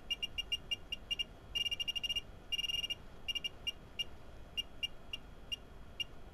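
Short, identical electronic beeps from a digital signal generator, one for each click of its frequency knob as the frequency is dialled up. They come in quick runs, nearly continuous a couple of seconds in, then slow to single beeps as the setting nears its target.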